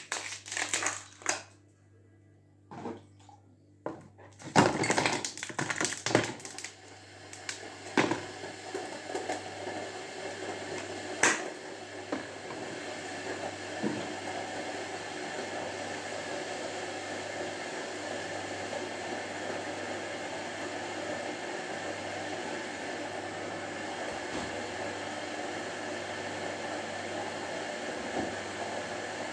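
Knocks and clatter of kitchen items being handled, then a steady rushing noise that starts about seven seconds in and holds unchanged.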